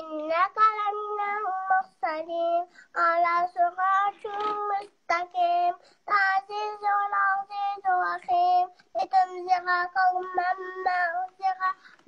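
A young girl chanting a Quran recitation in Arabic, in a melodic sung style, with held, wavering notes in short phrases and brief pauses between them.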